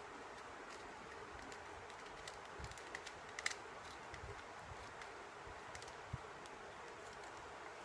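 Faint clicks and light rattles of a plastic camera tripod's pan handle and head being twisted and adjusted by hand, over a steady low hiss. The clearest clicks come about three to three and a half seconds in, with one more near the end.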